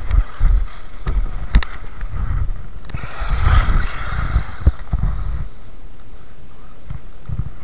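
WLtoys 12428 RC buggy on its stock brushed motor and tyres running over crusted snow and ice, a burst of hiss as it passes close about three seconds in, then fading as it drives away. Low thumps and rumbles come and go in the first half.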